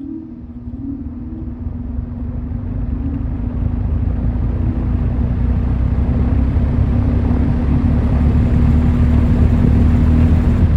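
Vintage Sears Homart metal box fan starting up on medium speed: a steady motor hum with the rush of air from the blades, growing steadily louder as the fan spins up.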